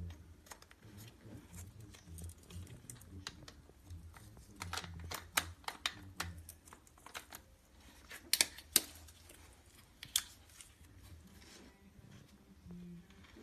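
Scattered sharp clicks and light knocks, with a louder cluster about eight seconds in and another knock about ten seconds in.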